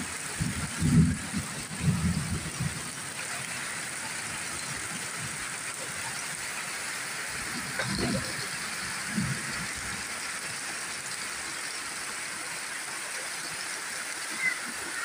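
Heavy tropical rain falling steadily on banana leaves and wet ground, with runoff from the roof edge pouring into a metal basin. A few low rumbles in the first few seconds.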